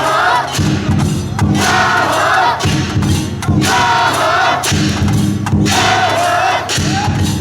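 A team of float pullers chanting in unison, a call every second and a half or so, over a fast beat of drums.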